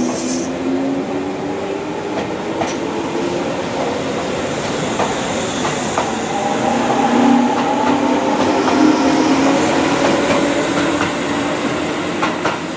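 Tobu 634 series electric train pulling away from the platform: its traction motors whine in slowly gliding tones that climb as it gathers speed, over a steady running rumble, with a few sharp clacks of wheels over rail joints.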